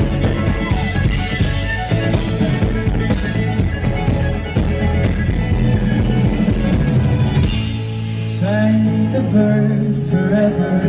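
Live rock band playing loudly, with drums and bass guitar. A little past the middle the drums drop back, leaving long held bass notes under a wavering melody line.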